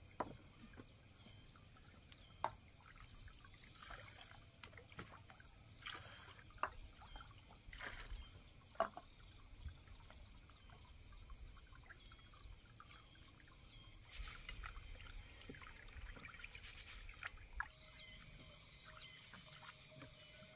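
Small pot and water being handled by hand: scattered light knocks of a pot being set down and moved, with small dribbles and splashes of water. A faint high-pitched drone pulses on and off about once a second throughout, and a steady mid-pitched tone comes in near the end.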